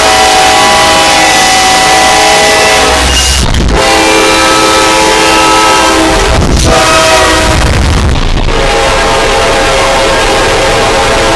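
Train air horns blowing long, held chords, one horn clip after another with abrupt cuts three times as the chord changes. The sound is boosted until it clips, harsh and heavily distorted.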